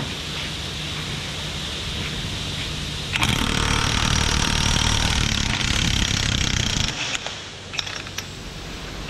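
Cordless impact wrench hammering for about four seconds, starting about three seconds in, breaking loose the piston retaining nut on a hydraulic cylinder rod.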